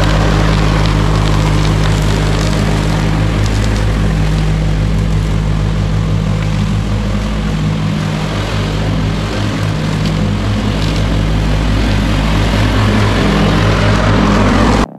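Toro 616Z zero-turn mower's engine running steadily at speed while it mows and bags leaves, dipping slightly midway as it drives off toward the far end of the lawn. It cuts off suddenly at the very end as music begins.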